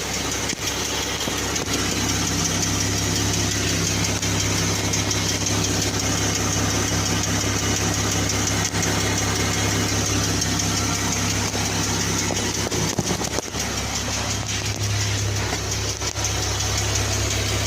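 2014 Jeep Wrangler's 3.6-litre Pentastar V6 idling steadily with a light tick, which the owner suspects is a hydraulic valve lifter.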